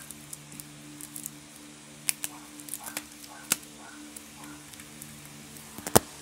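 Taps and clicks of Pokémon cards and a rubber-banded card deck being handled and set down on a table: a few sharp ones in the middle and the loudest knock near the end, over a steady low hum.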